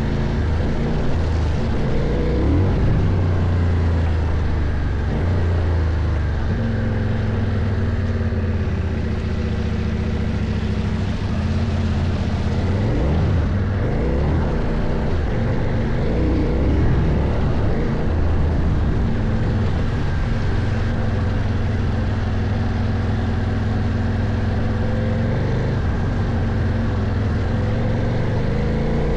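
Parallel-twin motorcycle engine of a CFMOTO Ibex 800T running under way off-road, its revs rising and falling again and again with the throttle.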